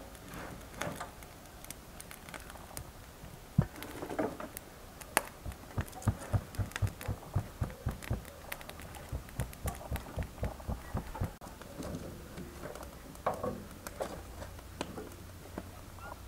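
Fingertips pressing and patting soft dough on a floured wooden board, a run of soft, even taps about three a second through the middle, sealing a thin dough sheet folded over a greens filling.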